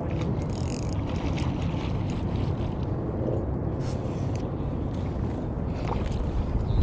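Steady wind buffeting the microphone, a low rumbling rush, with small waves lapping at the lake's edge.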